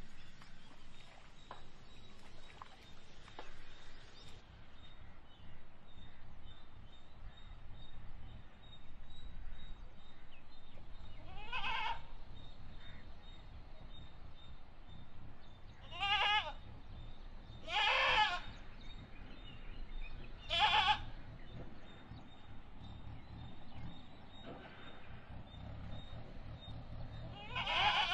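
A herd of goats bleating: five separate wavering bleats spread through the stretch, over a low steady rumble.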